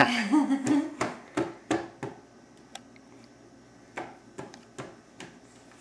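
A baby's laugh trailing off, then a dozen or so scattered sharp taps and clicks of a feeding spoon against a baby-food dish and the plastic high-chair tray.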